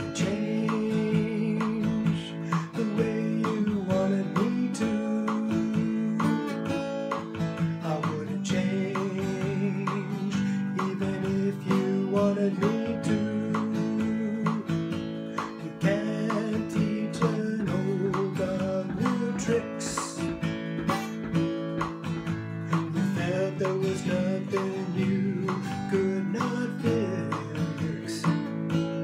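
Strummed acoustic guitar accompanying a man singing a song.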